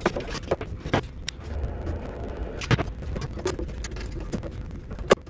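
Scattered small clicks, taps and rustles of hands working car wiring and a screwdriver at the voltage regulator.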